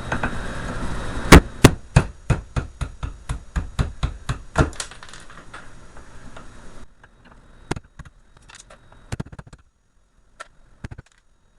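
A hand tool knocking the copper commutator bars off a heat-treated starter motor armature: a quick run of sharp metal knocks, about three a second, followed by scattered lighter taps and clicks.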